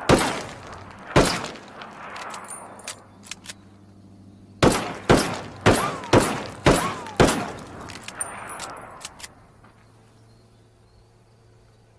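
Colt Navy revolver firing: two shots about a second apart, then a quick string of six shots roughly half a second apart, each with an echoing tail. Light metallic clicks come between the groups of shots and again just after the last one.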